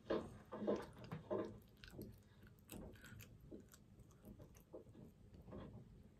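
A person chewing a sandwich close to the microphone: irregular wet mouth clicks and soft squelches. It is louder in the first second and a half, then settles into quieter chewing.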